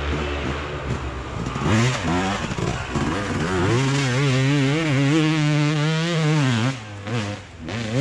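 Dirt bike engine revving hard and unevenly as it claws up a muddy, rutted slope, its pitch rising and falling with the throttle; it eases off about seven seconds in.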